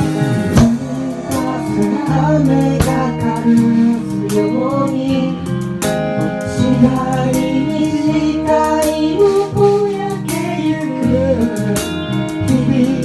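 A band song playing: guitar accompaniment with sharp rhythmic hits and a wavering lead melody line.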